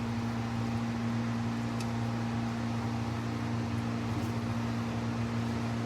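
Steady low mechanical hum, like a fan or motor running, with a constant two-tone drone over a background hiss and a couple of faint ticks.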